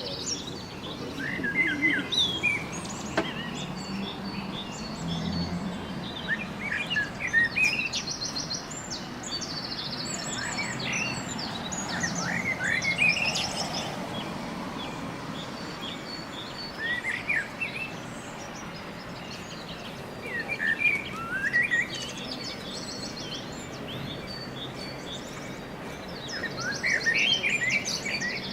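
Recorded birdsong: several small birds chirping and trilling in bursts every few seconds over a steady background hiss.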